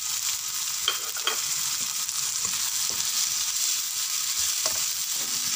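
Onion, tomato and spice masala sizzling steadily in hot oil in a nonstick kadhai, stirred with a slotted spatula, with two sharp scrapes of the spatula about a second in.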